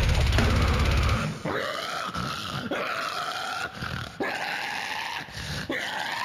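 Deathcore song playing. A heavy low guitar-and-drum band part cuts out about a second in, leaving deep growled and screamed vocals that slide in pitch, with a few sharp hits.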